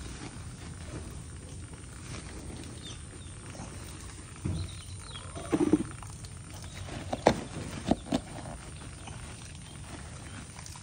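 Woven plastic feed sacks being rustled and opened, with a few sharp crinkles or knocks about seven to eight seconds in. A short low animal call sounds about five and a half seconds in.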